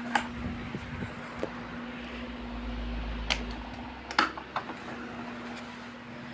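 Two Malory electric fans, a Zéfiro and a Boreal, running together with a steady motor hum and the whoosh of their blades. A few sharp clicks and knocks sound over it, the loudest about four seconds in.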